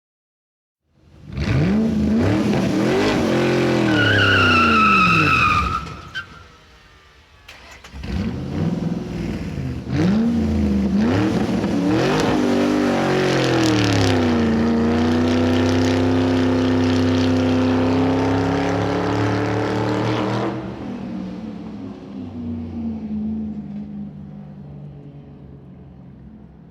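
Racing car engine revving up and down through the gears, then braking hard with a tyre squeal about four to six seconds in. After a short lull it accelerates away again, climbing through the gears to a high steady note, then drops off about twenty seconds in and fades into the distance.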